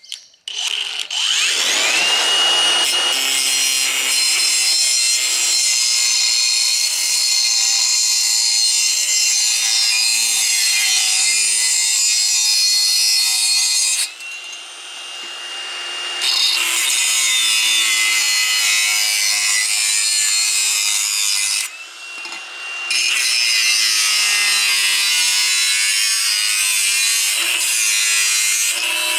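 Angle grinder cutting into 3-inch exhaust pipe: a loud, steady grinding hiss with a high whine that rises as the disc spins up about a second in. It eases off twice, around the middle and again later, and spins back up each time for the next cut.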